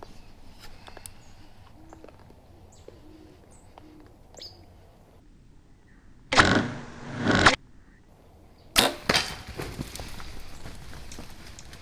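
A bow shot at game: a loud whooshing burst of about a second, then a sharp crack about two seconds later, followed by steady rustling noise.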